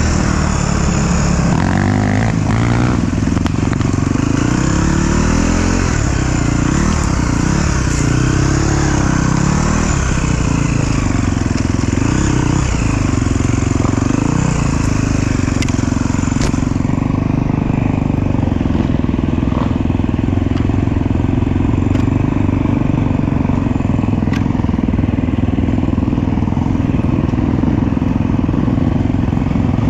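Off-road motorcycle engine heard from the rider's own bike. It rises and falls in pitch with the throttle for about the first half, then runs at a steadier pitch for the rest.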